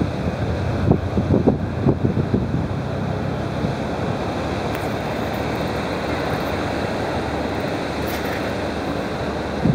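Wind buffeting the microphone in a few gusts in the first couple of seconds, over a steady rushing noise that runs on evenly.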